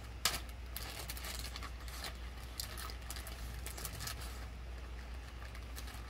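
Small zip-lock plastic bag rustling and crinkling as it is handled and opened, a string of short crackles and clicks, busiest in the first four seconds or so.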